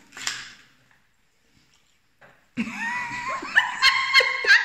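Dog whining in high, wavering tones, with a few sharp clicks among them, starting about two and a half seconds in after a short quiet gap.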